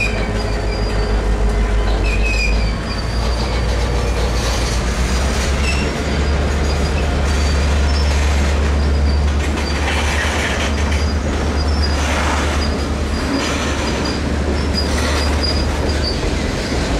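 Freight train cars, covered hoppers and tank cars, rolling past close by: a steady low rumble of steel wheels on the rails, with a few short, high wheel squeals and some clacks at the rail joints.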